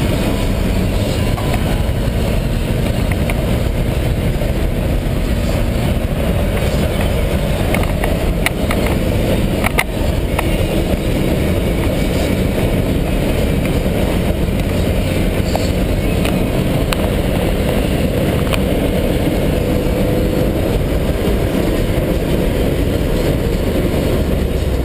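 Steady cabin noise of a Jaguar being driven hard: engine running under load, mixed with road and wind noise. A couple of short knocks about a third of the way in.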